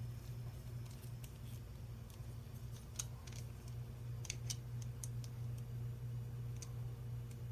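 Light scattered clicks from a screwdriver turning small screws into a 3D-printed plastic part, mostly in the second half, over a steady low hum.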